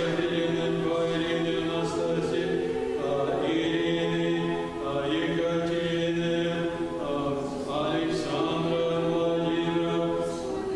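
Several voices singing Russian Orthodox liturgical chant a cappella, with held notes in phrases a few seconds long and short breaks between them.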